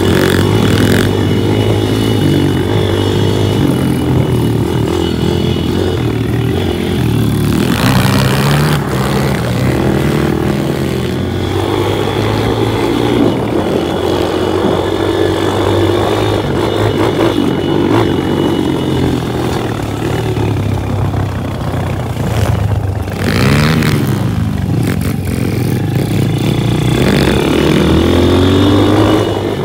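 Pit bike engine running and revving up and down with the throttle. Its pitch drops sharply and climbs again about two-thirds of the way through.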